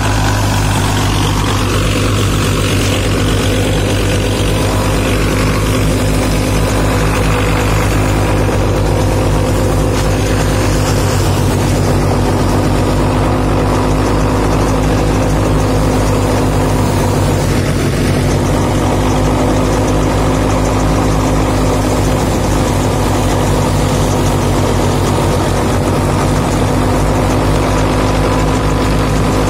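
Belarus 510 tractor's diesel engine running at a steady speed, driving a thresher that hums along with it.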